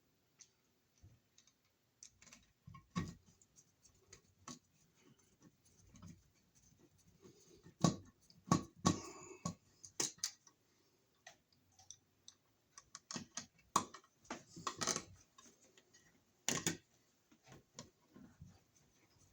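Scattered, irregular clicks, knocks and scrapes of wires being folded into an electrical box and a wall receptacle being pushed into place and positioned on it.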